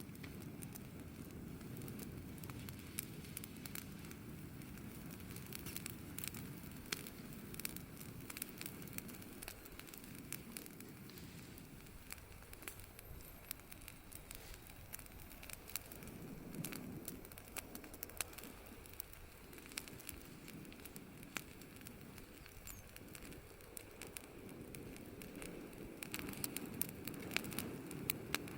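Wood campfire crackling, with frequent small sharp pops scattered irregularly over a steady low rumble of the burning fire.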